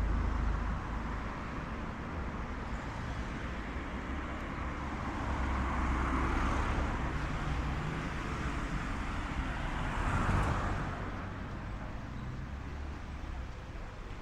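Street traffic: cars passing by over a steady low rumble, two passes swelling and fading about six and ten seconds in.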